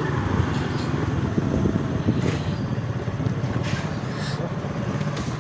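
Motorbike running as it is ridden slowly through a busy street, a steady low rumble with brief higher traffic noises about two and four seconds in.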